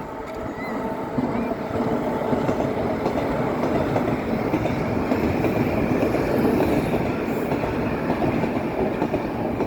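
A train running on the rails. The noise builds over the first two seconds, then holds steady.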